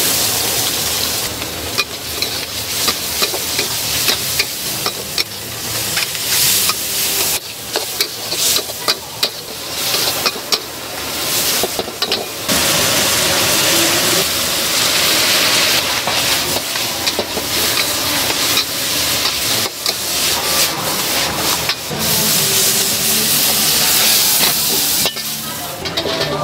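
Minced meat and chilies sizzling in a hot wok as they are stir-fried. A metal spatula scrapes and clanks against the wok throughout, in many sharp strikes.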